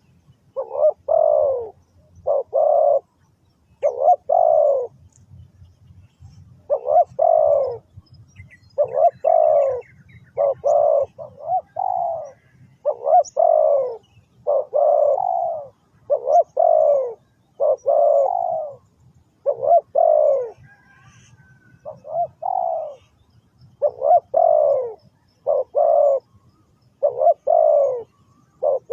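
Spotted dove cooing: loud, short, falling coos given in phrases of two or three, repeated steadily over and over.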